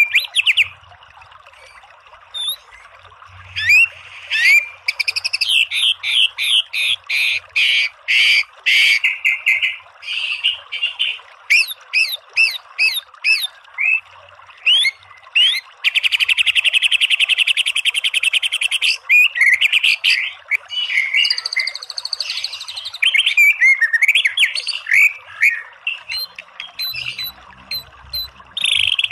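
White-rumped shama (murai batu) singing in loud, fast runs of whistles, chirps and quick rising and falling notes, the rapid-fire 'tembakan' phrases used to provoke caged shamas into singing. About a second in the song pauses for two seconds or so, and about halfway through comes a rapid buzzy trill lasting about three seconds. A steady hiss runs beneath the song.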